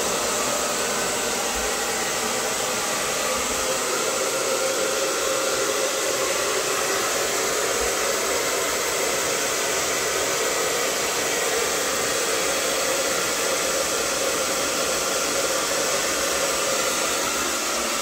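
Handheld hair dryer running steadily: a constant rush of air with a faint motor whine.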